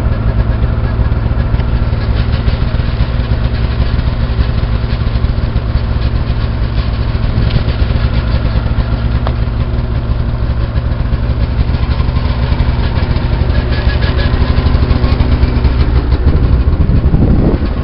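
Snowmobile engines idling steadily as they warm up on a cold morning.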